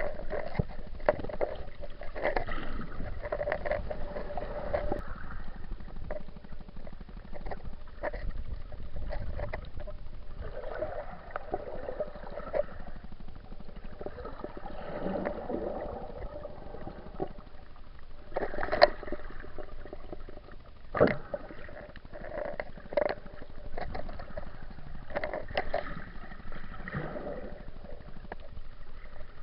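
Water sloshing and gurgling, muffled through a waterproof action camera's housing, with scattered sharp clicks and knocks.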